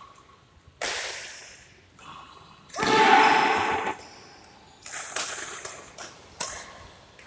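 Badminton rackets striking a shuttlecock in a rally, a string of sharp hits, each trailing off in the hall's echo. The loudest and longest sound comes about three seconds in, around an overhead smash.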